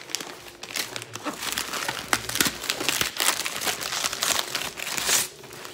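Gift wrapping paper crumpling and rustling in irregular bursts, with sharp crackles, as a wrapped present is handled and unwrapped.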